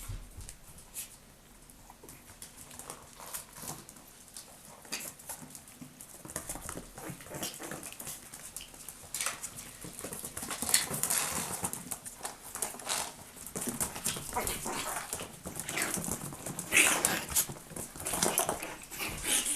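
Chihuahua puppies moving about close to the microphone: a string of small clicks and scuffs from their claws and paws, which grows busier and louder about halfway through.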